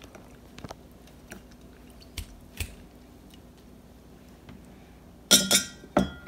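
A few soft clicks and small handling noises, then a loud clatter of a hard container being handled about five seconds in, ringing briefly, with a second knock just after.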